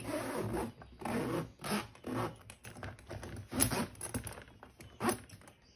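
Zipper of a TRAVELEX 290 hard-shell suitcase being pulled around the case in several short runs, closing it.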